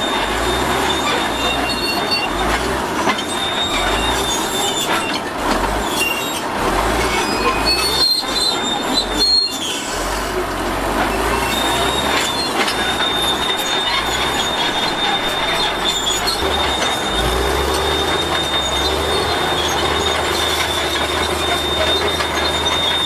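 Bulldozer at work, its steel crawler tracks squealing and clanking over the engine's steady running. The high squeal drops out for a few seconds midway, then returns.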